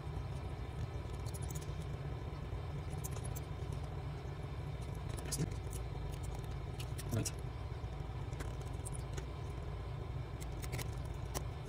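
Small scattered clicks and light scrapes of tiny screws and a precision screwdriver as the screws go back into a Vivo Y71 phone's frame, two clearer ticks about halfway through, over a steady low hum.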